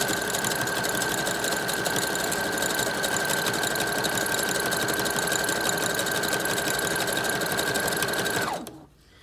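Brother electric sewing machine running steadily, zigzag-stitching through layered hair weft tracks, with a constant motor whine over the rapid needle strokes. It slows and stops about eight and a half seconds in.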